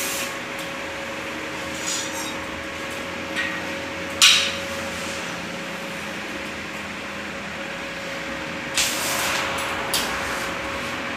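Steady hiss and hum of welding stainless steel square tubing, broken by several sharp metallic knocks of steel tubes being handled, the loudest about four seconds in.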